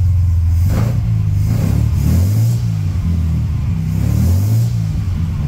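SS Jaguar 3½ Litre's overhead-valve straight-six engine running under way. Its pitch rises twice, about a second and a half in and again about four seconds in, as it picks up revs.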